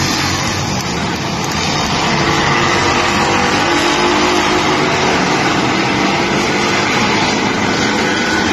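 Several stock cars racing past in a pack, their engines running hard together in a loud, mixed drone that swells about two seconds in.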